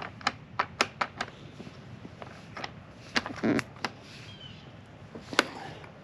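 Hard clicks and knocks from a BMW E46 convertible top's front latch mechanism as it is worked by hand to realign it: a quick run of about five clicks in the first second, a few more with a short rattle around three seconds in, and one loudest knock near the end.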